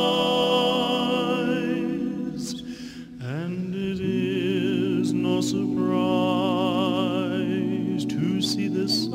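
Slow background music of long held notes, with a brief drop about three seconds in and a note wavering with vibrato in the middle.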